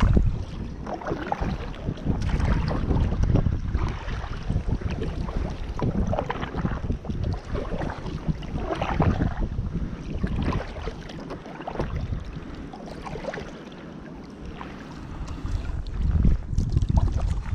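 Kayak paddle strokes splashing and dripping in calm water, irregular, with wind buffeting the microphone as a low rumble that eases for a few seconds past the middle.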